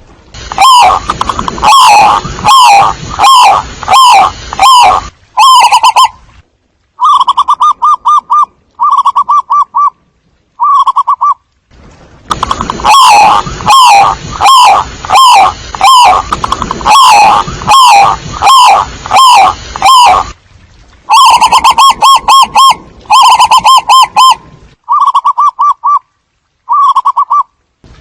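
Zebra dove calling: bursts of rapid staccato cooing notes repeated in groups with short pauses, very loud and distorted by clipping.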